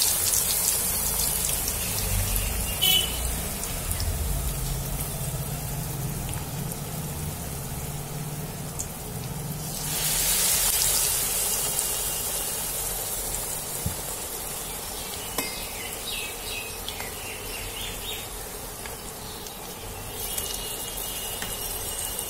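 Batter-coated night jasmine leaf fritters deep-frying in hot oil, a steady sizzle that swells again about ten seconds in. A low rumble sits underneath for several seconds in the first half.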